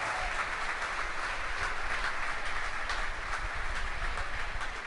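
Steady applause from the SpaceX launch team, a dense patter of many hands clapping, greeting confirmation of payload fairing separation.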